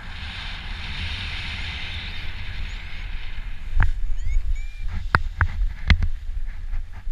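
Air rushing over the microphone during a paraglider's final glide just above the grass. About four seconds in it gives way to a few sharp knocks and thuds as the pilot touches down and steps out on the landing field.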